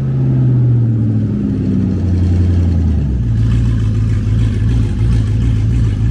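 Lincoln car's engine running at raised revs, the note easing down slightly, then dropping at about three seconds to a lower, steady drone with a deeper rumble underneath.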